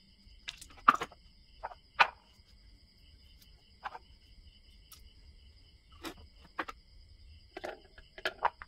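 Scattered sharp clicks and knocks from a chainsaw and its carburetor parts being handled and set down, the loudest about one and two seconds in, over a steady high chirring of insects.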